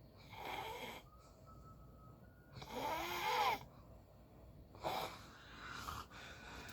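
A person snoring: four rough breaths, the loudest and longest about three seconds in, with a wheezy whistle that rises and falls in pitch.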